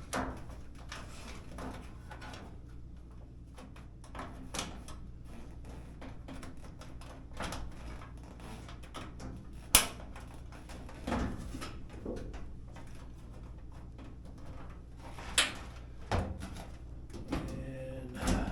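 Scattered clicks and light knocks of dryer parts being handled and fitted back together during reassembly, with two sharper clacks, one about ten seconds in and one about fifteen seconds in, over a steady low hum.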